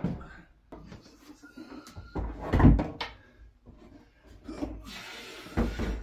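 Knocks and bumps of an empty upper kitchen cabinet box being handled and pushed into place against the wall, with one heavy thud about two and a half seconds in and a short scraping sound near the end.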